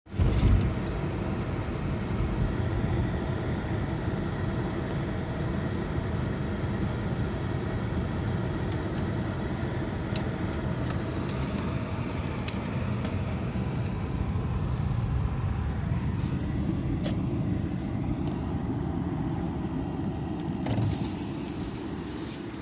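Steady road and engine noise inside a moving car's cabin, a low rumble, with a few faint clicks in the middle part.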